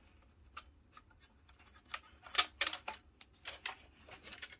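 A run of small clicks and scrapes as an external Wi-Fi antenna lead's threaded connector is handled and fed through a hole in a PC case, busiest about two and a half seconds in.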